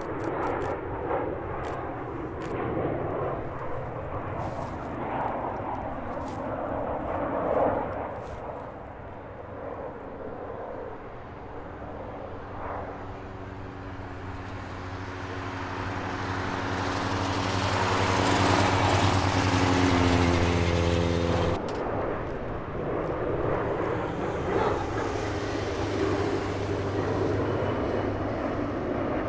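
Boeing 737-800 airliner's CFM56 jet engines on a landing approach, growing louder to a peak about two-thirds of the way through, then cutting off suddenly. A steadier, lower jet drone follows: the Boeing 777 freighter's engines on approach.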